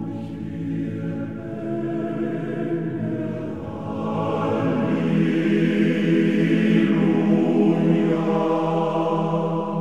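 Background music: a choir singing long held chords, swelling a little after a change of chord about four seconds in.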